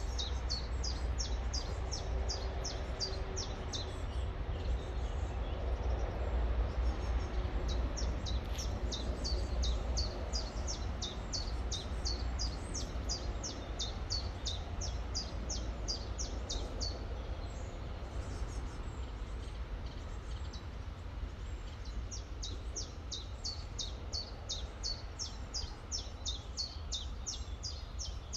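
A songbird chirping in fast runs of short, high, falling notes, several a second, in three bouts with pauses between them. Under it runs the steady low rush of a river.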